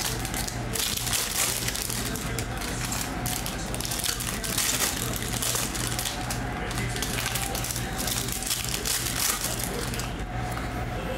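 Plastic wrappers of Panini Mosaic basketball card packs crinkling and tearing as they are opened by hand, a busy crackling rustle that goes on throughout.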